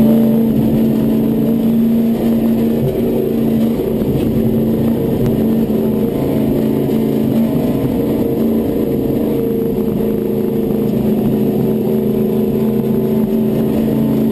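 Race truck's engine running at a steady, even pitch, heard from inside the cab.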